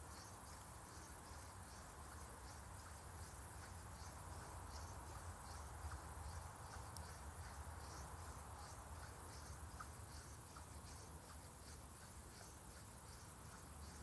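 Crickets chirping in a steady rhythm, about two short high chirps a second, over a thin continuous high insect trill.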